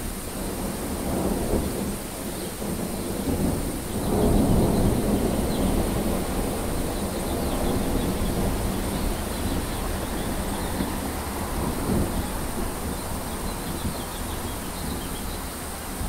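Thunder rumbling over steady rain. The loudest roll swells about four seconds in, with smaller rumbles before it and again later.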